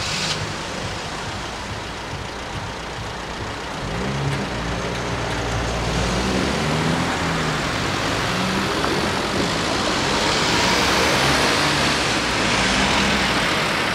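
Cars pulling away and driving over a level crossing: engines accelerating with rising and falling pitch from about four seconds in, then tyre noise growing louder near the end as they pass close by.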